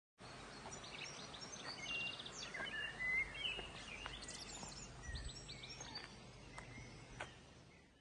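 Several small birds singing and chirping: short whistled notes, with a rapid trill about two seconds in, over a low steady background rumble. It fades away near the end.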